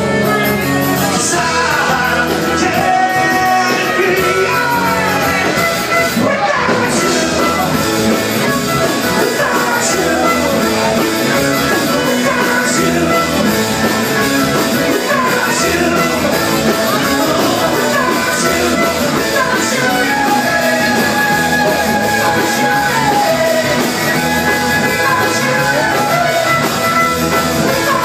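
Live rock band playing a song: electric and acoustic guitars, fiddle, bass and drums with singing, loud and unbroken.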